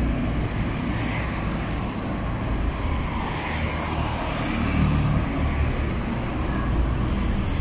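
Steady city traffic noise: a low rumble of car and motorbike engines and tyres on the road.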